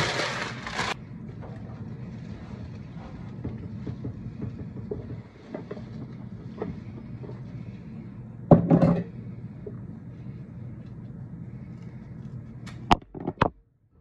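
Rose stems being trimmed with scissors and handled: a loud rustle at the start that stops abruptly, light rustling and faint clicks of stems and leaves, one louder handling noise past the middle, and a quick run of sharp snips near the end, over a steady low hum.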